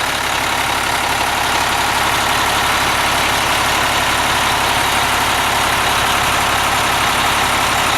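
A motorhome's Cummins diesel engine idling steadily.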